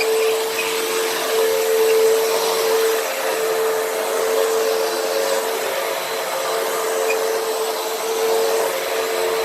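Hoover WindTunnel upright vacuum cleaner running on a rug: a steady rush of air with a constant hum from the motor.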